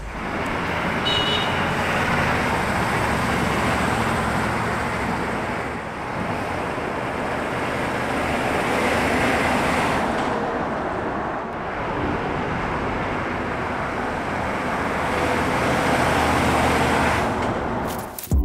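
AM General M1123 Humvee's 6.5-litre diesel driving past on pavement: an engine rumble and tyre noise that swell and fade about three times.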